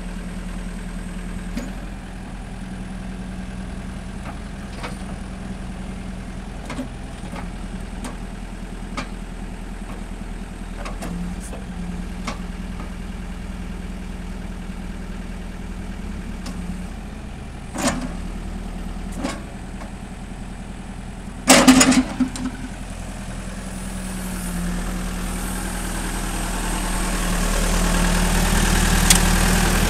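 Caterpillar backhoe loader's diesel engine running steadily, with scattered metallic clanks and knocks from the backhoe arm and bucket working. A burst of loud clanks comes a little past two-thirds through, and the engine grows louder over the last few seconds.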